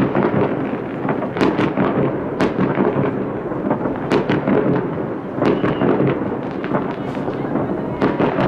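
Many fireworks going off at once, heard from a distance: a continuous rumble and crackle with sharp bangs several times a second.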